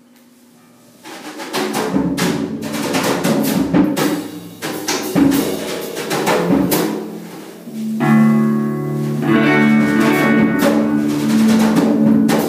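A live rock band of drum kit and electric guitar comes in about a second in with loose, free drum hits and cymbal crashes. From about eight seconds a sustained chord rings steadily over the drumming.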